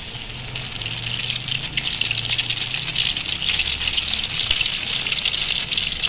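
Egg-soaked bread slice sizzling in hot desi ghee in a frying pan as French toast. A steady crackling sizzle that builds over the first couple of seconds and then holds.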